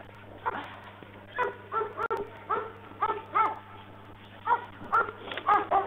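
A dog barking repeatedly, a dozen or so short barks in uneven runs.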